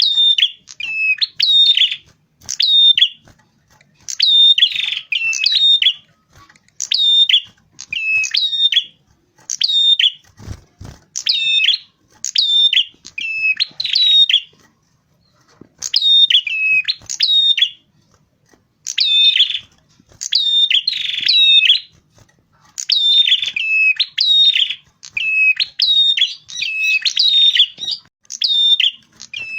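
Red-headed prenjak, a small warbler-like songbird, singing: short phrases of sharp, high zigzag chirps repeated in quick bursts every second or two. A brief low thud about ten seconds in.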